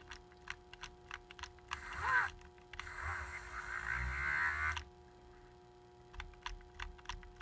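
Dremel rotary tool with a failing switch cutting in and out: a run of sharp clicks, a brief spin-up with a rising whine about two seconds in, then about two seconds of the sanding tool running on the wet armature commutator before it stops, and more clicks near the end.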